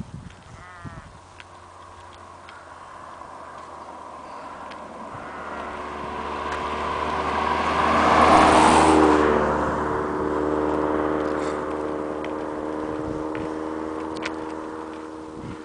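A motor vehicle on the road approaching and passing close by. Engine and tyre noise grow over several seconds to a peak about eight seconds in, then a steady engine tone lingers and slowly fades.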